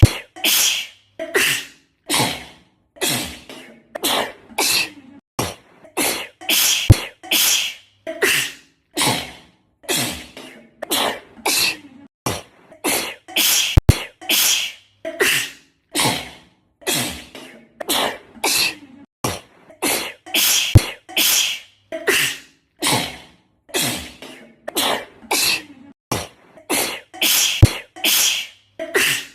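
A girl's sneezing fit: short, loud sneezes one after another, more than one a second, with abrupt silences between them. The run repeats about every seven seconds as an edited loop, with a click at each join.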